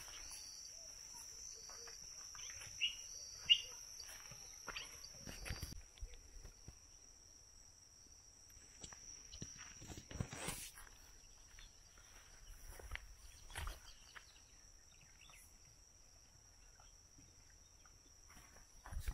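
Rural outdoor ambience: a steady high-pitched insect drone that stops about six seconds in, with two short sharp chirps around three seconds in. After that, faint scattered rustles and footsteps through grass.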